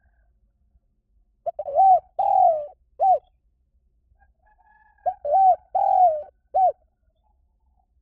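Spotted dove cooing: two phrases, each of three or four coos with the longest in the middle, about three and a half seconds apart.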